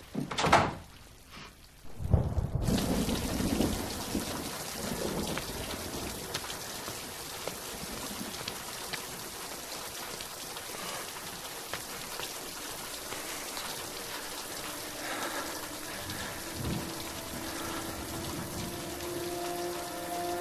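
Heavy rain falling steadily, with a low rumble of thunder for a couple of seconds as it comes in. A single short thump comes about half a second in, just before the rain, and a few held music notes creep in near the end.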